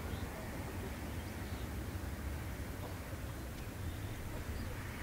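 Faint, steady jet engine noise from a Boeing 737-500's CFM56 turbofans as the airliner climbs out after takeoff, with a low rumble under it. A few short bird chirps sound over it.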